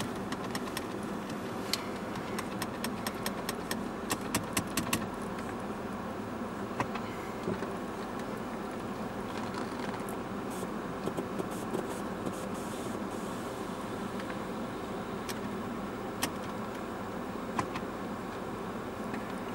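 Steady hum inside a Mercedes-Benz S450's cabin, with a quick run of light clicks a few seconds in and a few single clicks later.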